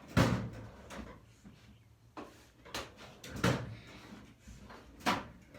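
Toolbox drawers being opened and shut while tools are rummaged through: a series of sharp knocks and clatters every second or so, loudest near the start, about halfway through, and near the end.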